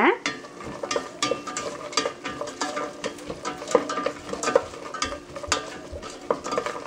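Wooden spatula stirring onions, green chillies and cashews in a stainless steel pot, with irregular clicks and knocks against the metal. Under it, a light sizzle of the pot's contents frying in ghee and oil.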